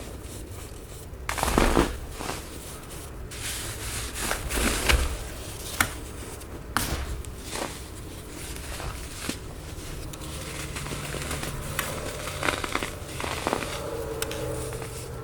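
Packed baking soda being crushed, giving irregular soft crunches and crackles, with a few sharper ones.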